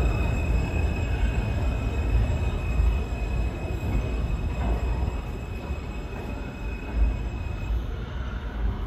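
New York City subway F train pulling away through an underground station: a low rumble of wheels on track that slowly fades, with a steady high squeal that stops near the end. One louder knock comes about seven seconds in.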